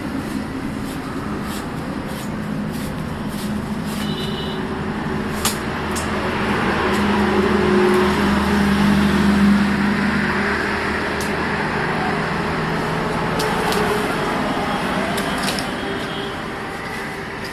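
An engine running steadily, growing louder through the middle and easing off near the end, with a few faint clicks.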